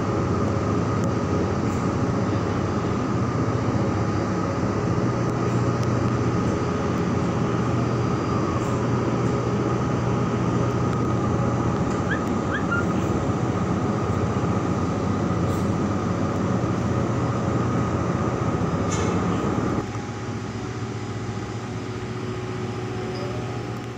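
Ship's diesel machinery running steadily: a constant low drone with a thin whine above it. About twenty seconds in the noise drops noticeably and carries on quieter.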